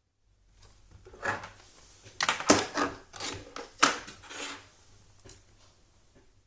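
A cluster of sharp clicks and knocks, irregular, the loudest about two and a half and four seconds in, from a computer being operated and handled by hand.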